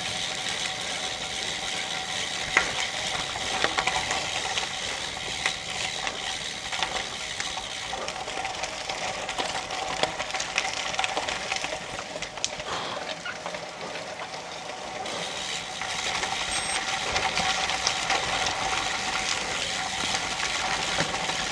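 Bicycle tyres rolling over a wet mud and gravel track in pouring rain: a steady sizzling hiss with scattered small crunches and clicks.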